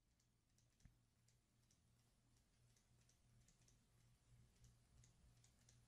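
Near silence: faint scattered clicks of a stylus writing on a tablet, over a faint low hum.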